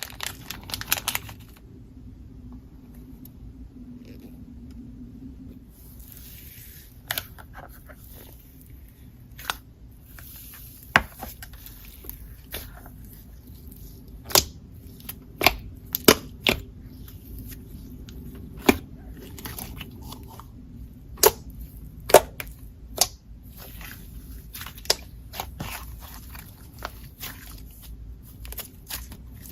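Jelly slime being squished and pressed by hand, giving sharp clicking pops at irregular intervals, about a dozen louder ones among softer crackles.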